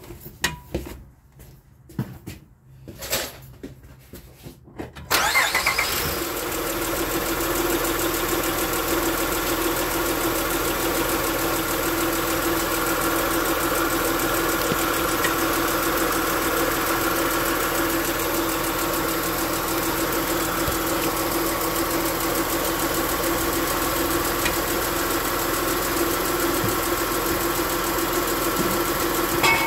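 Honda Odyssey's V6 engine started about five seconds in, after a few faint knocks, then idling steadily.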